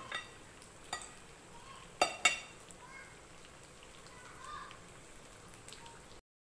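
Pieces of steamed taro cake frying in shallow oil in a pan, a steady faint sizzle. A few sharp clicks or knocks cut through it, the loudest a pair about two seconds in.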